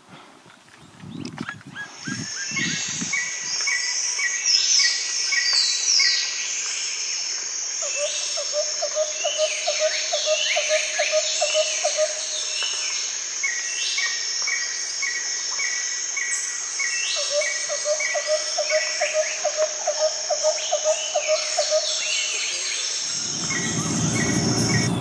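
Several birds calling together: trains of short repeated notes, quick downward-sliding calls, and a lower rapid trill that comes in twice for a few seconds each, over a steady high-pitched insect hum. Near the end it gives way suddenly to a low rumble.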